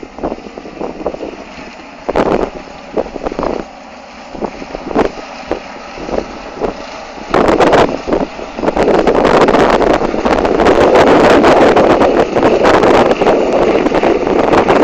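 Sugar beet harvesting machinery running, with wind buffeting the microphone in gusts. About seven seconds in the machine noise becomes much louder and denser and stays up.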